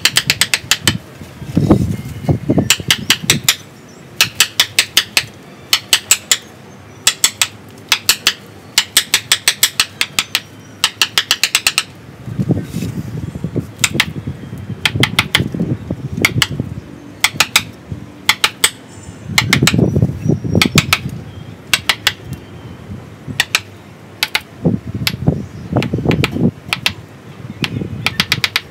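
A steel chisel struck repeatedly with a hand-held block to carve into the wooden trunk of a ficus bonsai. It gives runs of sharp taps, about four or five a second, broken by short pauses, with duller rough sounds at times as the blade bites and scrapes the wood.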